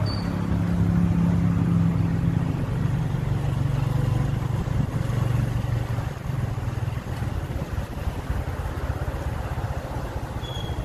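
Motor vehicle engine running steadily, its hum dropping in pitch about three to four seconds in as the engine slows.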